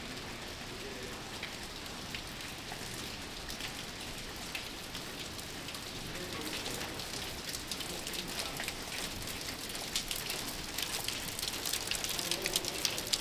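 Rain falling and pattering on surfaces, a steady hiss full of fine drop ticks that grows louder and denser over the second half.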